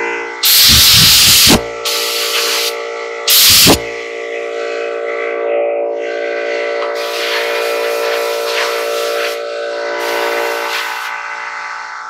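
Compressed air blasting from an air-hose blow nozzle to blow dirt off clothing: two loud blasts, one about half a second in lasting about a second and a shorter one about three seconds in, then lighter spurts of hissing air later on. A steady hum runs underneath.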